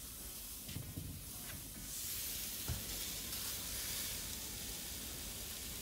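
Ribeye steaks sizzling on a hot grill grate. The hiss gets louder about two seconds in as the grill lid is opened, and there is a single light knock shortly after.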